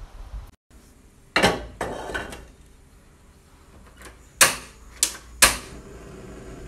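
A knock and clatter of a wok on a gas stove, then three sharp clicks about half a second apart as the stove's burner knob is turned.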